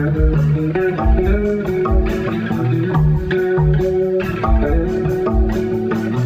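Instrumental rock jam: an electric guitar plays a melodic line over electric bass and percussion, with a steady low beat about twice a second.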